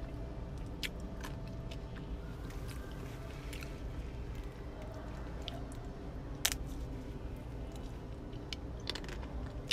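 Chewing and biting into the crisp chocolate shell of a Magnum ice cream bar with nut pieces, the coating cracking with a few sharp crunches, the loudest about six and a half seconds in. A steady low hum runs underneath.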